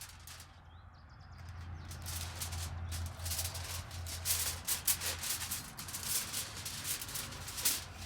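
Aluminium foil crinkling and rustling in irregular crackles as it is peeled off and handled.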